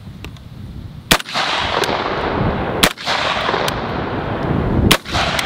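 A 12-gauge shotgun fires slugs three times, about two seconds apart. Each shot is a sharp report, with a steady rushing noise behind them.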